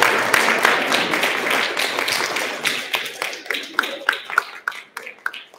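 Small group applauding, dense at first and thinning out to scattered single claps that die away near the end, with voices mixed in.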